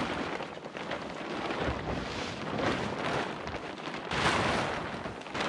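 Large plastic tarp rustling as it is dragged over a wooden frame, in irregular surges, loudest about four seconds in.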